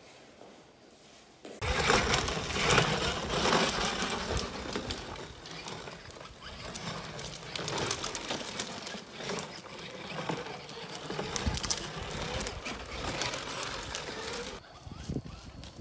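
Child's battery-powered toy motorbike rolling over a rough concrete lane, its plastic wheels rattling and crunching. The noise starts suddenly about a second and a half in and drops off near the end.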